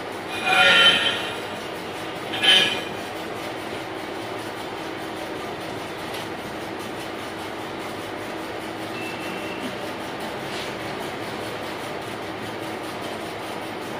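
Belt-driven metal lathe running with a steady hum. Two short, loud metallic screeches come about half a second and two and a half seconds in.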